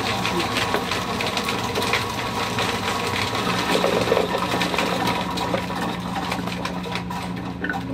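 Electric chestnut-peeling machine running: a steady motor hum with the dense rattle and clicking of chestnuts tumbling inside the drum as they are peeled and fed out of the chute.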